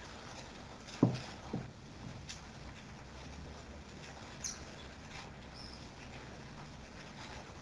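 A ceramic mug set down on a desk: two dull knocks about half a second apart over faint background hiss, followed by a few faint ticks.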